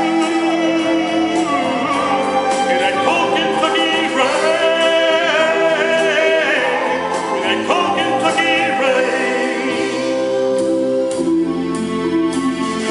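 Music of a country-pop ballad between verses, with held, wordless backing vocals over the band and no lead vocal. Near the end the voices drop away and the accompaniment thins.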